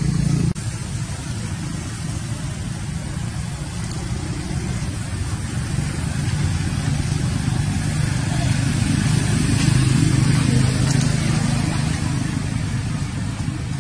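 Steady low rumble of a running motor vehicle engine, swelling to its loudest around ten seconds in and easing off toward the end, with a faint hiss above it.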